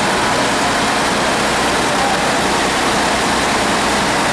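Diesel engine of an AEC Regent RT double-decker bus running steadily as the bus creeps slowly forward.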